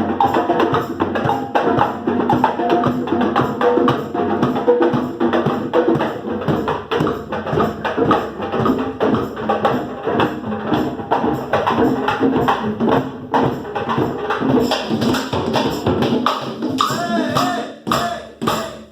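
Percussion ensemble playing drums and hand percussion together in a steady, dense rhythm; near the end the playing thins out into separate strokes.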